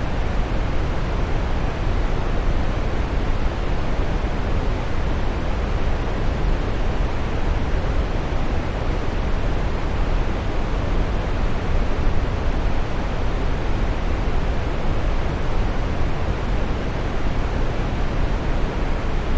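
Waterfall: a steady, unbroken rush of falling water, deepest in the low end, with no change throughout.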